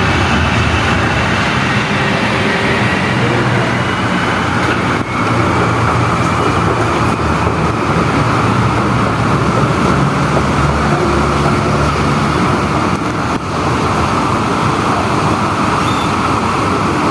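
Steady vehicle running noise with a low hum underneath.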